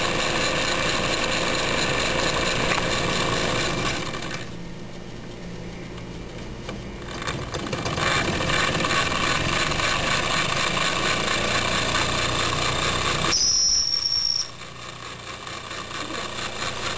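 Wilesco toy steam traction engine running steadily on the spot. Its sound drops away twice for a second or two, and during the second drop a short high whistle sounds for about a second.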